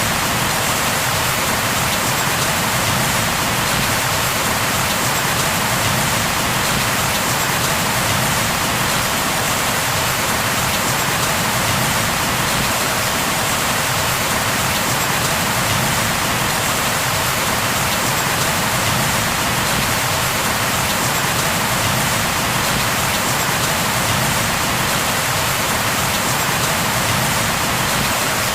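Steady rain falling, an even continuous hiss of drops with no thunder or distinct events.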